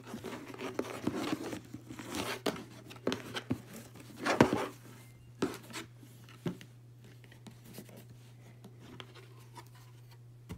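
Hands untying and pulling a ribbon off a Louis Vuitton cardboard gift box: rustling and light taps on the box, with one louder knock about four seconds in, then quieter handling as the lid is opened.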